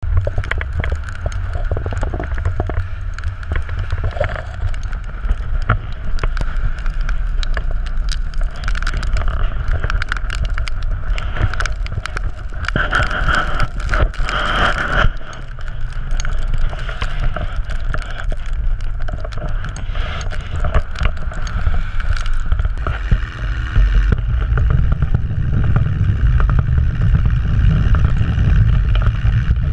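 Steady low engine rumble of a vehicle on the move, with wind buffeting an outside-mounted camera's microphone. About three-quarters of the way through the rumble grows heavier: the 1971 Thiokol snowcat's engine running as it travels over snow.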